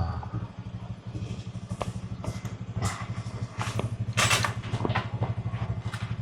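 Motorcycle engine idling with a steady, even low putter, with a few short clicks and knocks over it.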